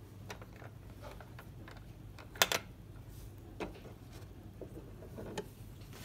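Light clicks and taps of 3D-printed plastic parts handled by hand, as the small hinged door and a roll-up garage door of a toy fire station are worked open. The sharpest is a quick double click about two and a half seconds in, with a few softer clicks near the end.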